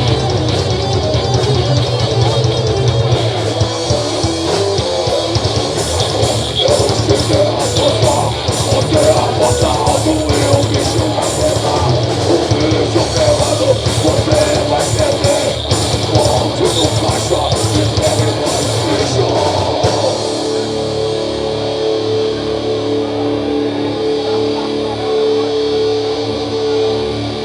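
Rock band playing an instrumental passage: guitar with drums and steady cymbal hits, settling about twenty seconds in into a long held chord without the cymbals.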